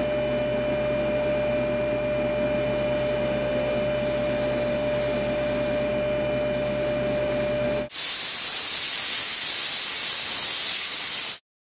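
Jeweler's polishing lathe motor running steadily with a constant hum while a gold ring is buffed. About eight seconds in it gives way to a louder steady hiss from a jewelry steam cleaner blasting steam at the ring to clean off polishing compound, which cuts off suddenly near the end.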